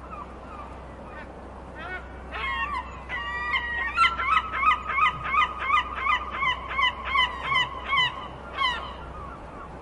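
Seagull calling: a few scattered yelping calls, then a fast, even run of about three calls a second, the loudest part, and one last call near the end, over a steady faint hiss.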